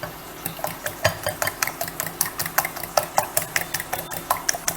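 Eggs being beaten briskly in a bowl, the utensil clicking against the bowl about six times a second, to beat them until frothy. A steady low hum runs underneath.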